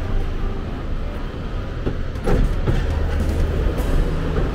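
Ropeway gondola cabin in motion, heard from inside as a steady low rumble, with a clunk a little over two seconds in.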